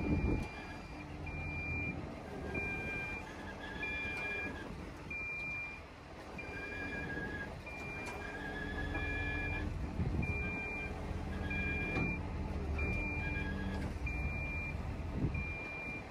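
Palfinger truck-mounted loader crane at work: the truck's diesel engine runs steadily to drive the crane hydraulics while a warning beeper sounds one short, single-pitched beep about every 1.3 seconds.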